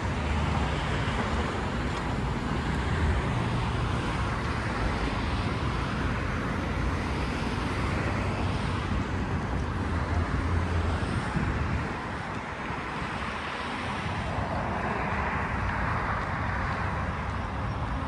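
Road traffic on a nearby street: a steady wash of tyre and engine noise, with passing cars swelling and fading now and then.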